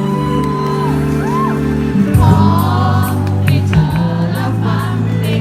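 Live pop ballad: held keyboard-like chords with a voice singing sliding, wordless phrases. About two seconds in, the voice grows fuller and light percussion hits come in.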